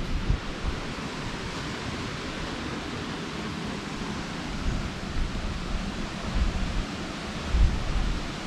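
Wind: a steady rushing hiss with low gusts buffeting the microphone now and then, strongest about three-quarters of the way through.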